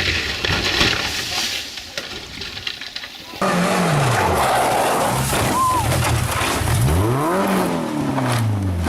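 Rally car engine revving hard. About three and a half seconds in it cuts in suddenly, after a noisy stretch with voices. Its pitch falls, then climbs and falls again as the driver lifts off and gets back on the throttle.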